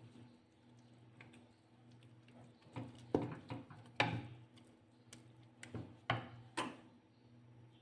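Utensil knocking and scraping in a pan while thick sticky rice is stirred: a handful of irregular sharp knocks, clustered in the middle, over a steady low hum.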